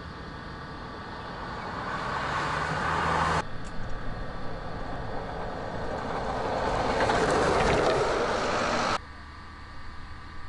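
Vehicles passing at speed: tyre and engine noise of the Sunswift solar car and its two escort SUVs swelling as they approach. It cuts off suddenly about three and a half seconds in, swells again, and cuts off suddenly once more near the end.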